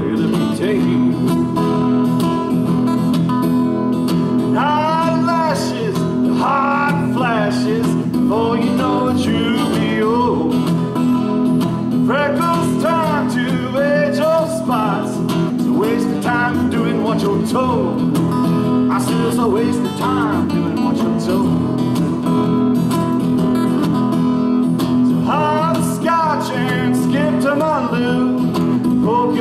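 Acoustic guitars strumming a country-folk tune together, with a wavering melody line that comes and goes over the chords.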